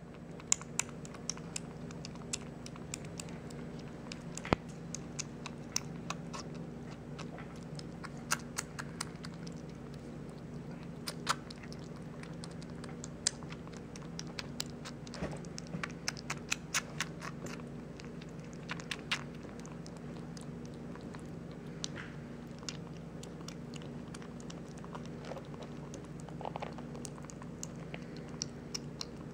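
A three-week-old kitten eating wet cat food from a bowl: irregular, quick wet smacking and clicking of its mouth as it laps and chews, over a steady low hum.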